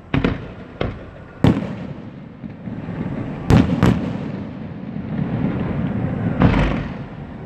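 Fireworks display: aerial shells bursting in a series of sharp bangs, two of them close together about three and a half seconds in, with a rumbling echo between them. Near the end comes a longer, noisier burst.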